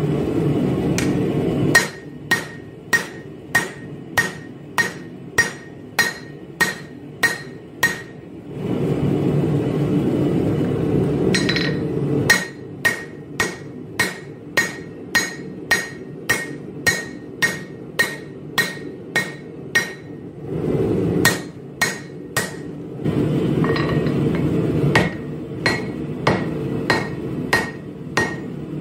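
Hand hammer striking a glowing laminated 1084/15N20 steel billet on an anvil during forging, about two blows a second, each with a short metallic ring. The runs of blows are broken by a few pauses filled with a steady low rushing noise.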